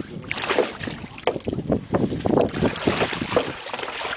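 Sea water splashing and lapping irregularly against the boat's side and a large float, with wind buffeting the microphone.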